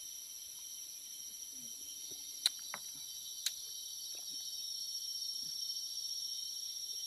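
Steady, high-pitched chorus of insects. Two sharp clicks come about two and a half and three and a half seconds in.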